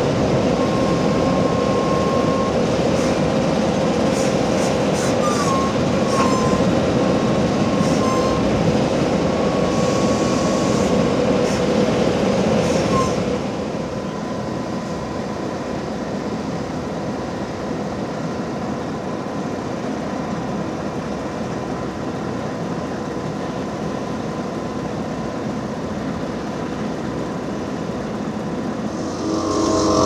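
Heavy asphalt-paving machinery running steadily: a continuous diesel and hydraulic drone with a faint high whine. The sound drops suddenly to a quieter, steadier drone about thirteen seconds in.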